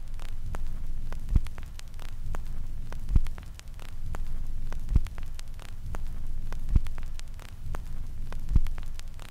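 Analogue-TV static effect: a steady low hum with crackle and scattered clicks, and a dull thump repeating about every second and three-quarters.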